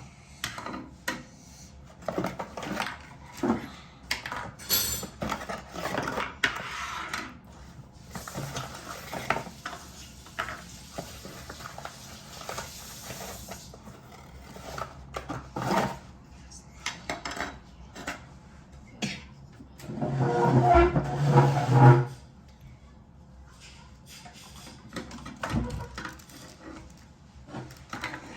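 Plastic pieces and packaging of a Play-Doh Kitchen Creations taco set being opened and handled: a long run of small irregular clicks, knocks and rattles.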